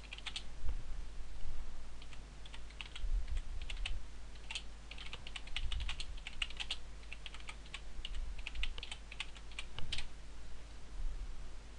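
Typing on a computer keyboard: a quick, irregular run of key clicks that stops a little before the end.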